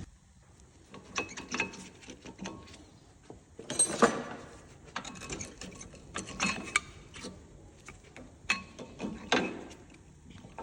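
Hand tools at work on a car's front brake: irregular clicks and knocks, the loudest about four seconds in and again near the end.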